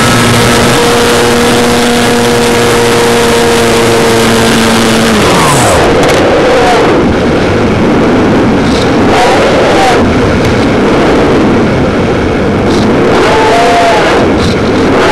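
Electric motor and propeller of an RC glider whining at a steady pitch, then cutting off about five seconds in as the pitch falls away. After that, loud rushing wind noise on the plane's onboard microphone as it glides with the motor off.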